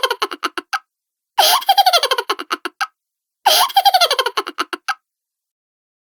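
Cartoon laugh sound effect: a quick, high-pitched run of 'ha-ha-ha' notes falling in pitch, played three times in a row.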